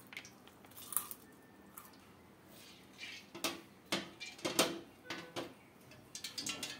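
Light clinks and taps on a stainless steel pan: a handful of separate knocks spread through, then a quicker patter of small clicks near the end.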